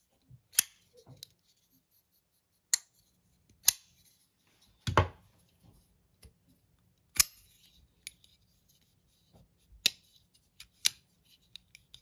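Folding knives being flicked open and dropped shut, giving sharp metallic snaps of the blade locking and closing against the detent, about seven of them spaced unevenly. There is one duller knock about five seconds in.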